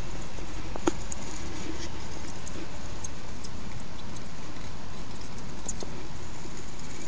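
Hamster scrabbling in fine bathing sand inside a glass jar: faint scattered scratchy ticks, with one sharper click about a second in, over a steady hiss and low hum.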